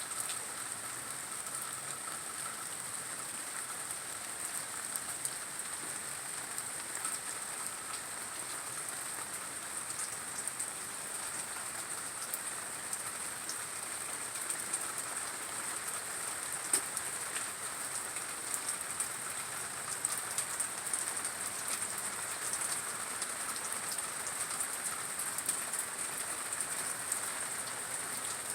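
Steady rain falling, with many small drop taps scattered through it.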